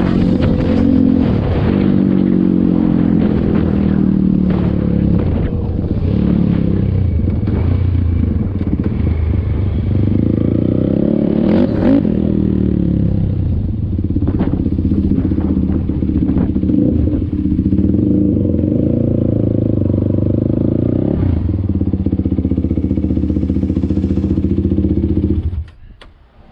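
Kawasaki KFX450R quad's single-cylinder four-stroke engine running under way, its pitch rising and falling with throttle and gear changes. It is shut off shortly before the end.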